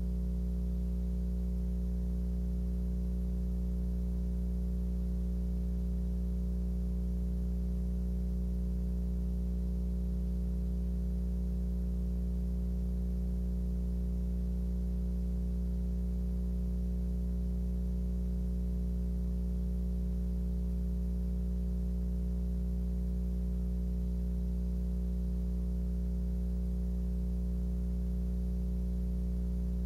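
A steady low hum made of several fixed tones, unchanging throughout.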